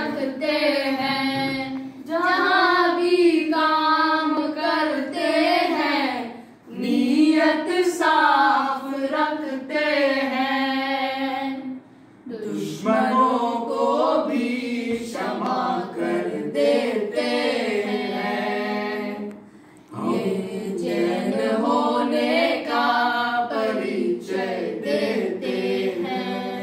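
A small group of voices, a child's among them, singing a Jain devotional bhajan unaccompanied. The singing comes in long phrases with brief pauses between them.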